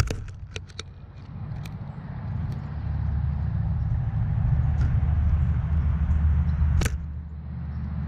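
Low, uneven outdoor rumble that swells and dips, with a few sharp clicks in the first two seconds and one louder click about seven seconds in.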